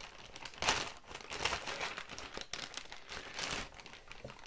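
Packaging rustling and crinkling in the hands as a parcel is opened: irregular rustles, the loudest about a second in.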